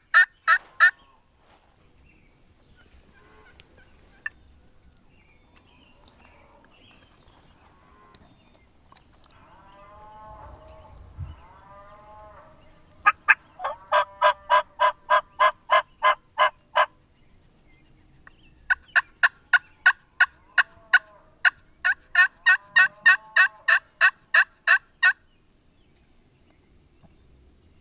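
Loud, close turkey yelping: rapid runs of evenly spaced sharp notes, about six a second, in two long runs past the middle, one lasting about four seconds and one about six. A softer warbling turkey call comes a little before the first run.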